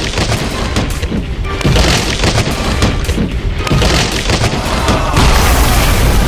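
Added boom and impact sound effects over background music, repeated hits through the first few seconds. From about five seconds in comes a longer, louder rumbling explosion sound.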